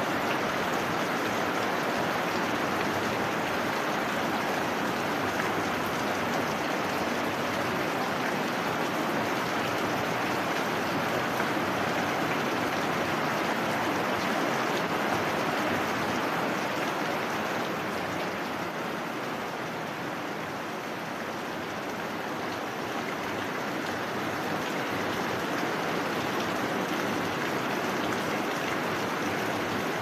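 Heavy rain falling, a steady dense hiss that eases a little for a few seconds past the middle and then comes back up.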